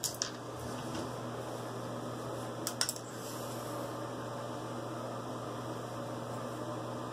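Steady hum of a fan running in a small room, with a few brief clicks of things being handled just after the start and again about three seconds in.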